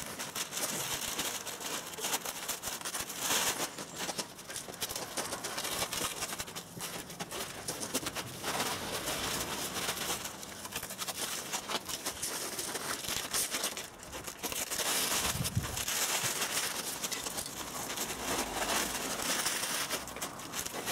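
Newspaper masking and tape being pulled off a car body and crumpled by hand, an irregular rustling and crinkling of paper.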